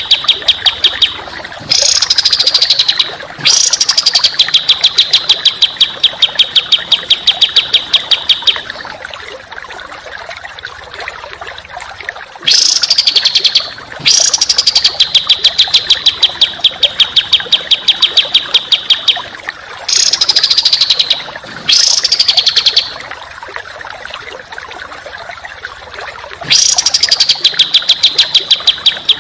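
Songbird masteran song of fast, harsh repeated notes ('tembakan rapat'), sung in runs of several seconds separated by short pauses. Some runs open with louder notes that drop in pitch before settling into the steady rattle.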